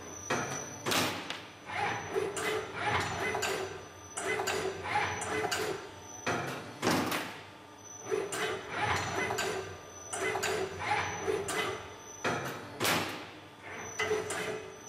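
Wire-bending machine cycling: short whirring servo moves of the wire feed and rotating bending head about once a second, with a sharp knock roughly every six seconds.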